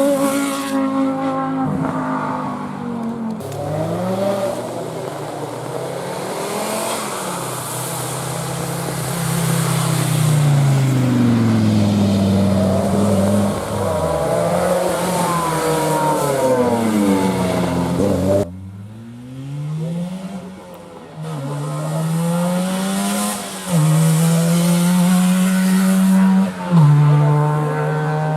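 Rally car engines revving hard as cars pass at speed, the note rising and falling. Near the end one engine climbs and drops in steps as it shifts up through the gears.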